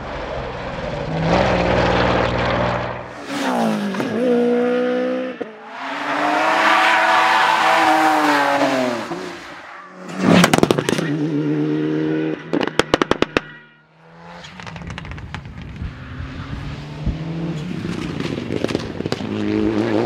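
Rally cars, one after another, running flat out and revving hard through the gears, their engine notes rising and falling as they pass. One pass sweeps up and then down in pitch. Around the middle, one car lets out a quick run of sharp cracks.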